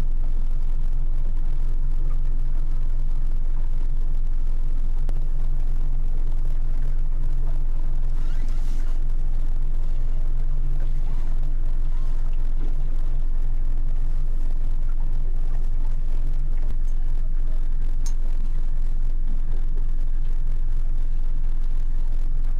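Small boat's engine running steadily at slow speed, an even low hum.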